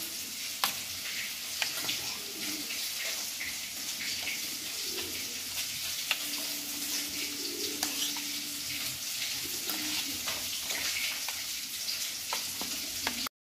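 Fish frying in hot oil with a steady sizzle, while a steel spoon clicks and scrapes on a steel plate as spice paste is mixed with water. The sound cuts off suddenly near the end.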